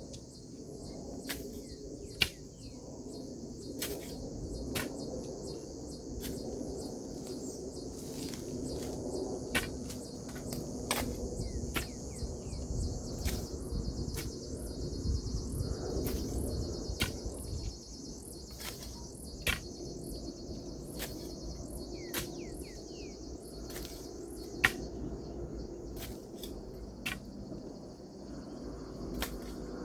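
Steady high-pitched insect chorus of crickets or cicadas, with short sharp clicks scattered irregularly through it and a low rumble underneath.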